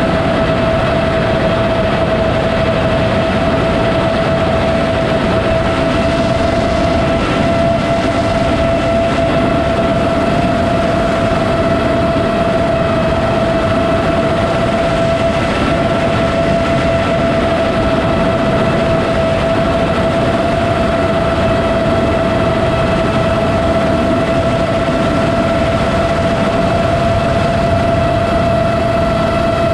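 iFlight Chimera7 FPV quadcopter's motors and propellers running at a steady, unchanging pitch: a constant whine with overtones over a dense rushing noise.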